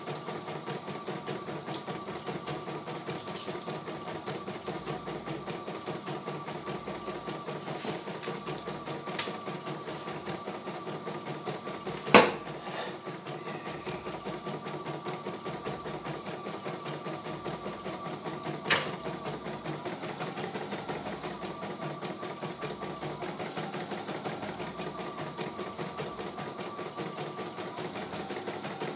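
CNY E900 computerized embroidery machine stitching out a design: a steady, rapid needle-and-hoop rhythm. Three sharp clicks break in, the loudest near the middle.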